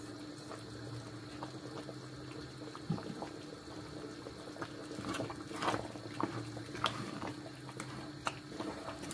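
Tomato stew simmering and bubbling in a pot as parboiled rice is stirred into it with a wooden spoon; from about five seconds in, the spoon scrapes and knocks against the pot in scattered short clicks.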